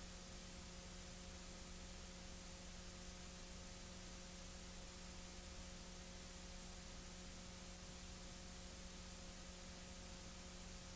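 Steady electrical hum and hiss with no other sound, the noise floor of an old recording.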